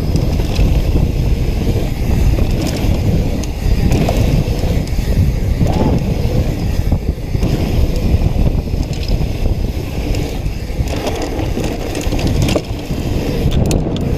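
Mountain bike rolling fast down a dirt trail: a steady low rumble of tyres on dirt with scattered rattles and knocks from the bike, mixed with wind on the helmet camera's microphone.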